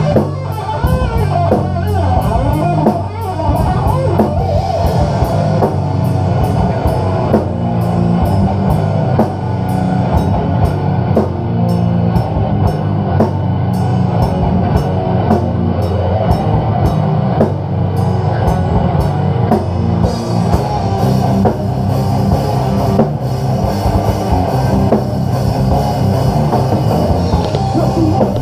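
Heavy metal band playing live without vocals: distorted electric guitars, bass guitar and drum kit. A fast, evenly spaced drum beat runs through the middle and gives way to a wash of cymbals about two-thirds of the way in.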